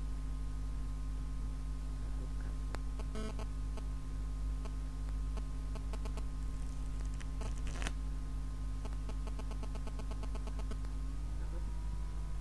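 Steady low hum and hiss with faint steady tones, broken by a few sharp clicks and a quick run of light ticks from a deck of playing cards being handled.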